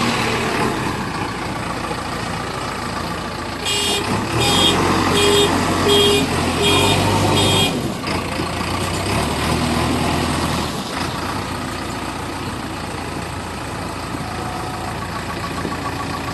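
Heavy diesel engines of a mud-stuck truck and a backhoe loader running under load, the low engine sound swelling from about four seconds in to about eleven. A vehicle horn sounds about six short toots in a row between about four and eight seconds in.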